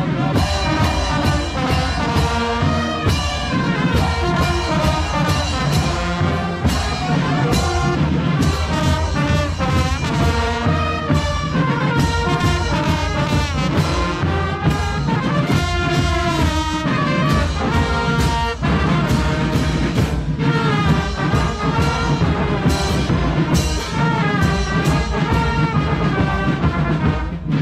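Brass band music, trumpets and trombones, playing loud over a steady drumbeat.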